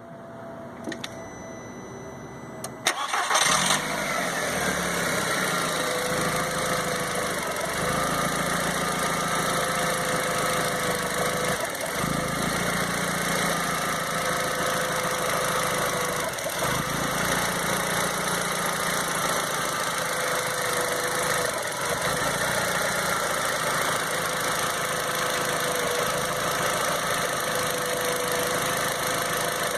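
A 2001 Volkswagen Jetta's 1.8-litre turbocharged four-cylinder engine cranks and starts about three seconds in, then idles with a brief hitch now and then. The owner suspects the rough idle is a misfire but is not sure.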